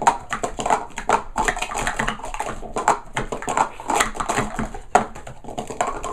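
Rapid, continuous clatter of plastic sport-stacking cups being stacked up and brought down on a stacking mat during a cycle. The quick irregular clicks and taps come many times a second.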